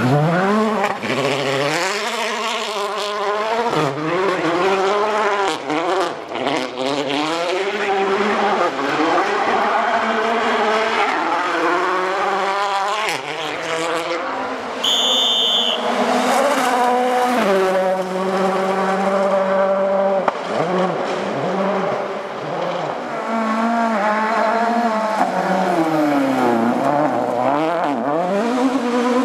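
Rally car engines revving hard, the pitch climbing and dropping again and again with gear changes and lifts off the throttle, over a haze of gravel and tyre noise. A short high tone sounds about halfway through.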